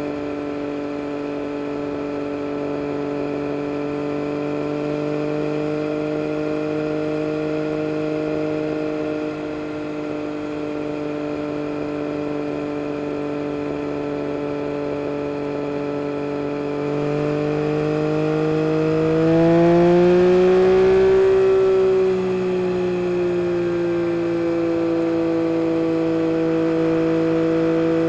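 Yamaha MT-09 SP's 890 cc inline three-cylinder engine through an Akrapovic carbon race exhaust, under way at steady revs. About two-thirds of the way through, the note rises and grows louder as the bike accelerates, then eases back to a steady, slightly higher note.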